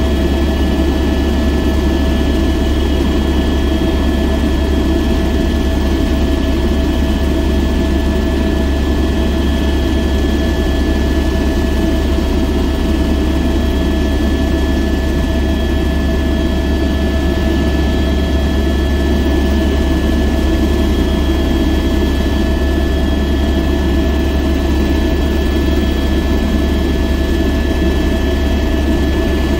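Helicopter in flight, heard from inside the cabin: a steady turbine whine over a loud, low rotor drone.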